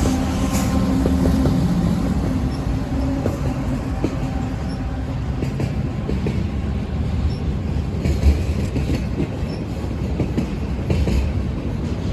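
BNSF train rolling past with a steady rumble and scattered wheel clicks over the rail joints. A steady tone fades out in the first two seconds, and there is one louder knock about eight seconds in.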